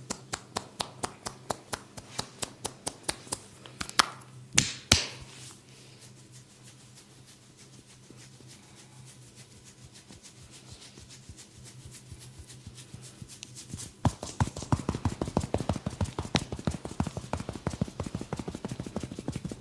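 Percussive hand massage: rhythmic tapping and chopping strikes of the hands on the body, about four a second, with a few louder sharp smacks around four to five seconds in. After a quieter stretch, faster chopping strikes start about fourteen seconds in, several a second, over a faint steady low hum.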